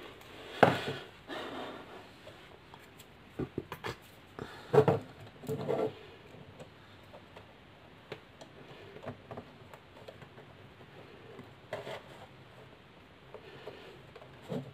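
Handling noise of wires and a clamp meter being fiddled with: a few short knocks and rustles scattered over a low background.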